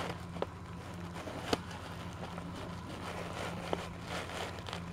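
Three light clicks and taps of plastic toy figures being handled on a tabletop train set, over a steady low hum.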